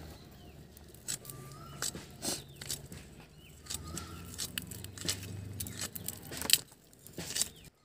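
Green vegetable being sliced against a fixed bonti blade: about ten irregular sharp clicks of the blade cutting through and the pieces dropping, the loudest a little past the middle. Faint short chirps and a low steady hum go on underneath.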